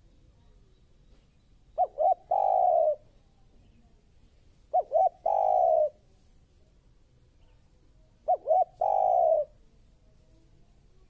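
Spotted dove cooing: three calls about three seconds apart, each two short coos followed by one longer coo.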